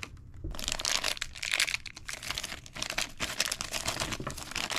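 A thin clear plastic parts bag crinkling as it is handled, with a dense run of irregular crackles starting about half a second in.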